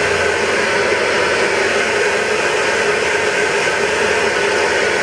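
Hand-held hair dryer running steadily, blowing air through short hair: an even rush of air with a steady motor hum underneath.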